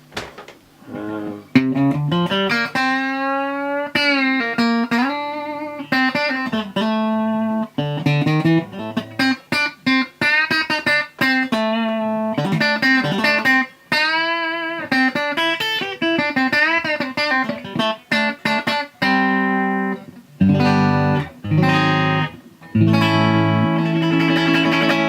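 Electric guitar played through a DOD FX80-B compressor/sustainer pedal. It plays single-note lead lines with string bends, vibrato and long sustained notes, then switches to strummed chords about 19 seconds in.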